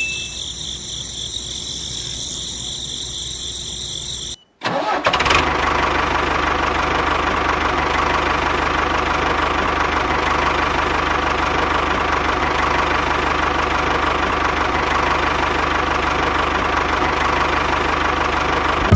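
A steady high-pitched whine for about four seconds that cuts off abruptly. After a short gap an engine starts and runs at an even, unchanging pace.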